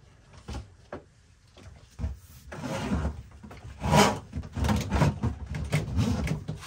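Electrical cables being pulled and fed through a sheet-metal channel in a cargo van's ceiling: irregular rubbing, scraping and knocking. A few light clicks at first, then busier handling from about two and a half seconds in, with the loudest knock near the middle.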